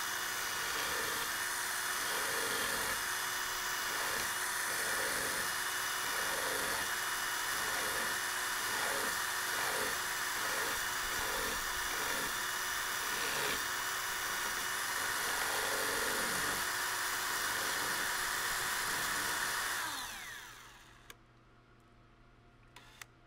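Electric drill motor spinning a small gun screw clamped in its chuck, running steadily with a rhythmic pulsing over its whine. About twenty seconds in it spins down and stops.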